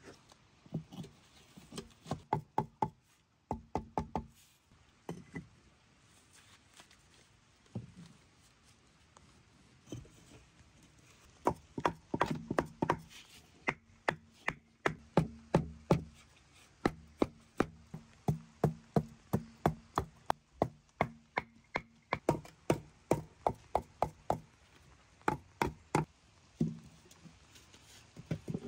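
Knife chopping on a wooden cutting board: runs of quick, even strokes, about three a second, with short pauses between the runs.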